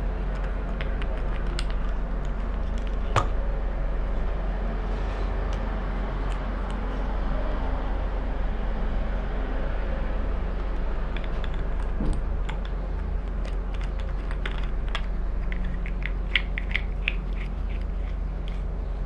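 Small clicks and ticks of hard plastic being handled: the threaded spray nozzle of a Nemo Helio Pressure Shower being unscrewed and turned in the hands. The clicks come thickest in a run near the end, over a steady low background hum.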